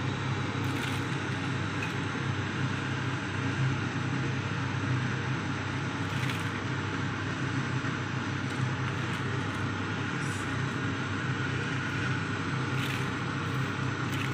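A pot of soup boiling hard on a gas stove, giving a steady rumbling hiss with a low hum, and a few faint clicks.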